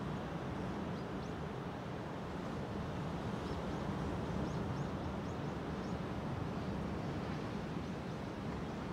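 Steady wash of ocean surf breaking on a sandy beach, a continuous even rush with a low rumble. A few faint, short high chirps come in the middle.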